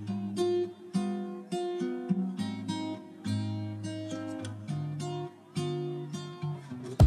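Background music: a picked melody on a plucked string instrument, single notes struck about twice a second and left to ring.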